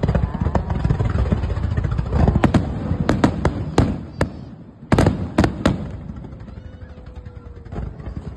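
Fireworks display: aerial shells and comets going off in a rapid string of sharp bangs and cracks over a low rumble. There is a dense cluster of loud bangs about two to four seconds in and another about five seconds in.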